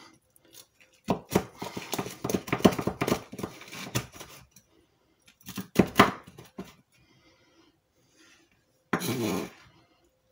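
Kitchen knife sawing through crisp pork crackling on a wooden cutting board: a dense run of crunching crackles for a few seconds, then a sharp knock of the blade on the board. Near the end there is a short scrape. The crunch is the sign that the crackling has crisped.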